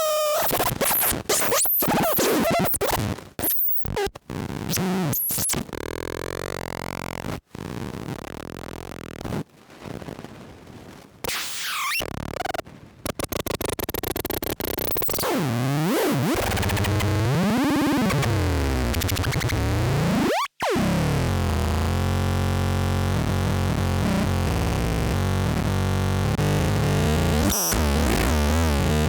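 Lefty's Sound Lab Rumble Noise fuzz and analog noise synth making glitchy electronic noise. It starts as choppy, stuttering bursts that cut out abruptly, then swoops up and down in pitch, and settles into a steady, buzzing distorted drone.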